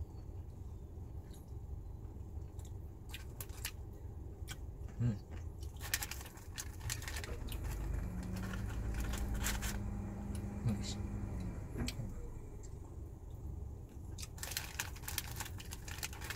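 Close-up eating sounds of fried chicken dipped in sauce: chewing and crunching with wet mouth clicks, thicker in two stretches, over a low steady rumble. A steady low hum joins in for a few seconds in the middle.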